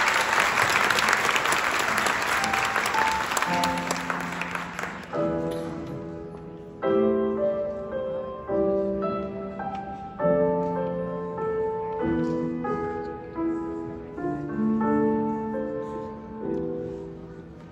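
Audience applause that fades out over the first five seconds, while a slow piano piece begins: held chords and single notes, each struck and then dying away, one every second or two.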